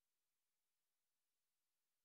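Near silence, with only a faint, even hiss.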